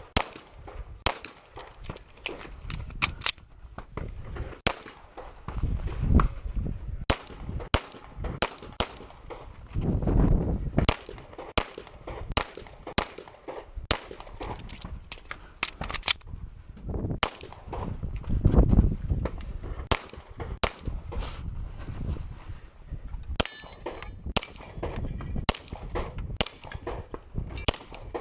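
Rapid gunfire from a practical shooting stage: dozens of sharp shots, many in quick pairs, with short pauses between strings. A few louder low rumbles come partway through.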